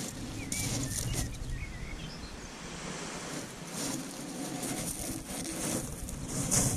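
Wind rumbling on the microphone over the wash of small waves on a sandy beach, with a louder hissing surge of surf about every three seconds.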